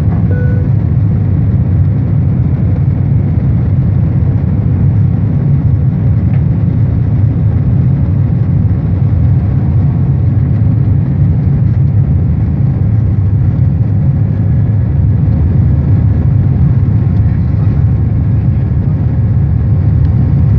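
Jet airliner cabin noise during the climb after takeoff: the engines and the rushing air make a loud, steady low drone.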